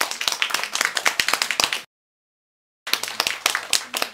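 Audience applauding, a dense patter of hand claps. The sound drops out completely for about a second midway, then the clapping resumes and begins to fade near the end.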